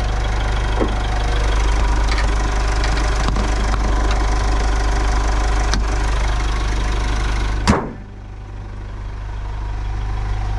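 Mitsubishi 4D56T four-cylinder turbo-diesel idling steadily. About three-quarters of the way through there is one sharp thump, after which the engine sounds quieter and duller for a moment.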